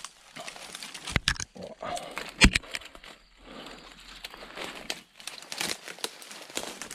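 Footsteps pushing through dry brush and undergrowth: dead twigs and branches crackle and rustle irregularly, with a few sharp snaps, the loudest about two and a half seconds in.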